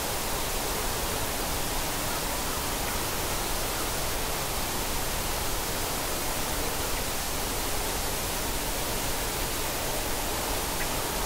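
Steady, even hiss with nothing else standing out.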